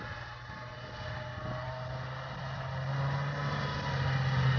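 Snowmobile engine running at a steady pitch as the machine approaches, growing steadily louder.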